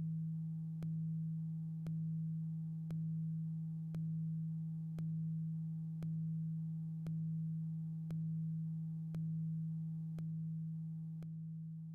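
A low, steady electronic tone, like a hum, pulsing with a faint click about once a second and easing slightly in level after each pulse.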